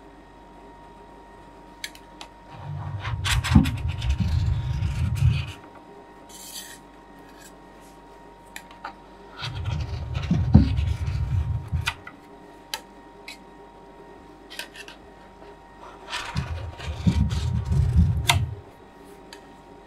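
A steel spatula scraping frozen raspberry ice cream off the chilled metal plate of an Ultratec ICR 2450 roll-ice machine, curling it into rolls in three scraping strokes of a few seconds each: about two and a half seconds in, near the middle, and near the end. Light taps and clicks of the spatula on the plate fall between the strokes.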